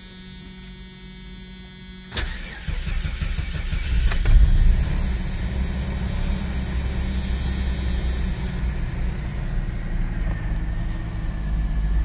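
Jeep Cherokee XJ engine started from cold: a click about two seconds in, then about two seconds of cranking before it fires up, followed by a steady idle.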